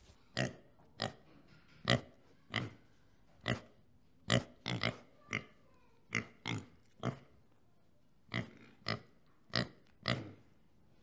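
Warthogs giving some fifteen short grunts, spaced irregularly about half a second to a second apart.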